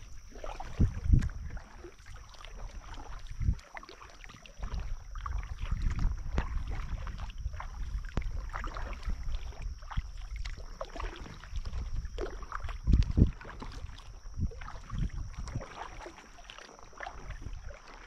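Kayak paddle strokes dipping and swishing through calm lake water, over and over, with a thin steady high tone behind. Two loud low thumps come about a second in and again about thirteen seconds in.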